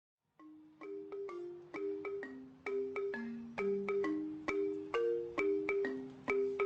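Background music: a melody of struck mallet-percussion notes, several a second, each ringing briefly and fading, starting about half a second in.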